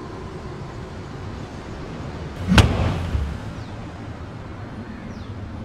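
A single loud thud or bang about two and a half seconds in, with a deep thump that dies away within half a second, over a steady low background hiss.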